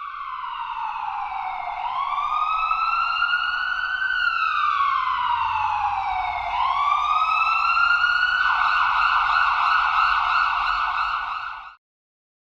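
Ambulance siren in wail mode, its pitch rising and falling slowly every few seconds. About two-thirds of the way through it switches to a fast yelp warble, then cuts off suddenly near the end.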